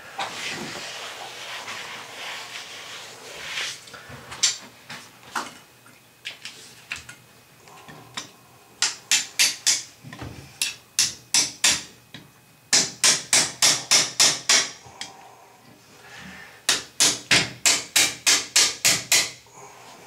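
Hammer beating a spanner flange up under a broken cast-iron toilet flange. The blows come in quick runs of about four or five a second, four runs in all, starting about nine seconds in. Before them there is a rasping scrape and a few scattered knocks.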